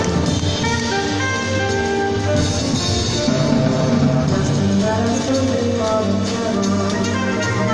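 Live jazz band playing: tenor saxophone lead over piano, hollow-body electric guitar, double bass and drums.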